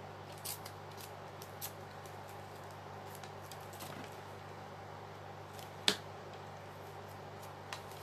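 Paper collage scraps rustling and crinkling as they are handled and pressed onto a journal page, with scattered light clicks and one sharper tap about six seconds in, over a steady low hum.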